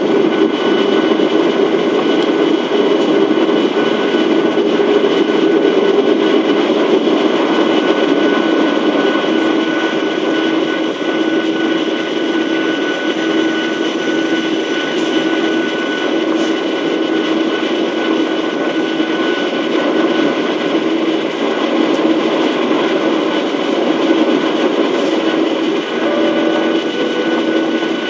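Steady in-flight cabin noise of a Boeing 737-800: the drone of its CFM56 turbofan engines and the rush of air, with a constant low hum and fainter whining tones above it.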